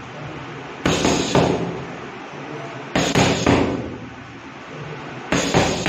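Boxing gloves punching focus mitts: sharp slaps in quick combinations of two or three, about a second in, around three seconds in and again near the end, each ringing briefly in the room.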